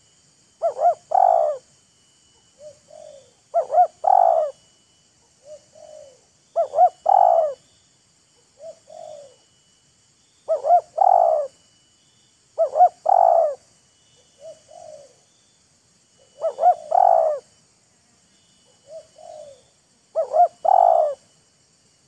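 Spotted doves cooing: a loud phrase of two quick notes and a longer coo, repeated seven times every three to four seconds, with softer, shorter coos in the gaps between.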